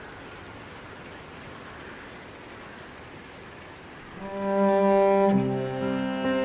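A soft, steady hiss, then about four seconds in music begins: bowed strings playing long held notes over a low cello-like line, much louder than the hiss.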